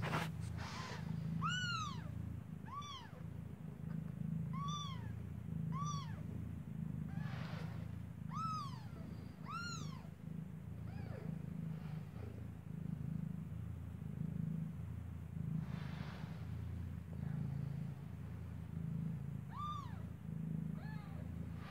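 Newborn kitten, eyes still closed, mewing in short high calls that each rise and fall in pitch, about seven times, mostly in the first ten seconds and once more near the end: it is hungry and searching for its mother's teats. A low steady hum runs underneath.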